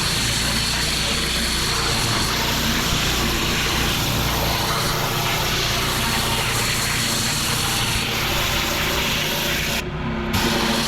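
Petrol pressure washer running steadily with its water jet blasting flagstone paving, a constant engine hum under a hissing spray; the sound breaks off briefly about ten seconds in.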